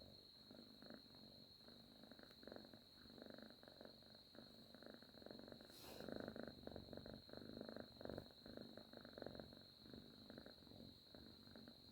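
Sleeping domestic cat purring faintly, swelling a little louder in the middle. There is a brief click about six seconds in.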